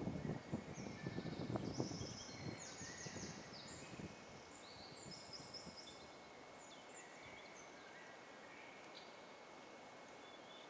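Songbirds singing in woodland, many short high chirping and trilling phrases overlapping. A low rumble of noise on the microphone in the first few seconds fades out.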